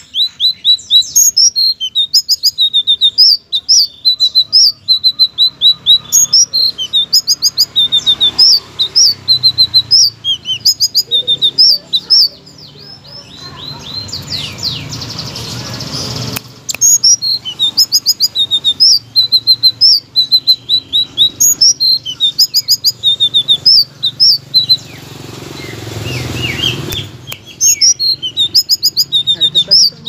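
Selendang biru songbird singing loudly in rapid strings of short, high chirped notes. It breaks off twice, about 12 seconds in and about 25 seconds in.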